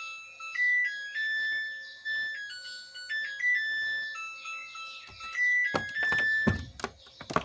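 Samsung top-loading washing machine's electronic beeper playing its chime melody, a tune of clean, stepped beeps. A few knocks and thuds follow near the end.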